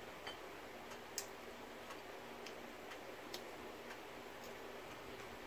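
A few faint, irregular clicks and light taps over a low steady room hiss: a metal spoon touching a ceramic soup bowl while eating.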